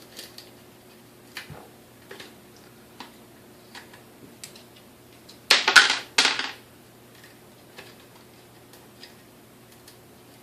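Light clicks and taps of metal mixer parts and tools being handled, with a louder clatter of a few knocks about five and a half to six and a half seconds in.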